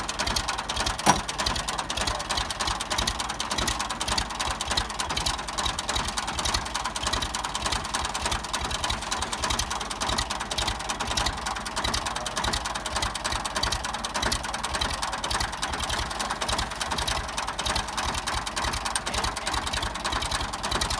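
Tractor diesel engine idling with a steady, even chugging rhythm, and a single sharp knock about a second in.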